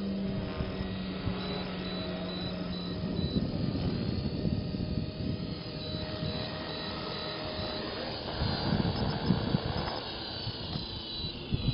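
Blade SR electric collective-pitch RC helicopter flying and coming down to a low hover: a steady high motor whine over the buzz of the rotor, with rushing noise that swells in gusts about two-thirds of the way in. Near the end the whine falls in pitch as the motor spools down on landing.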